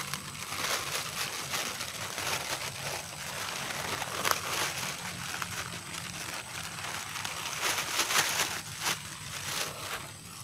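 Plastic bag rustling and crinkling as it is handled close to the microphone, with scattered clicks and knocks from gear being packed up.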